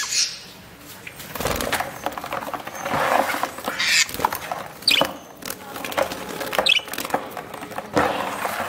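Budgerigars scrabbling and fluttering against a plastic tub as a hand scoops them up, with knocks and rustling and a few short high squawks.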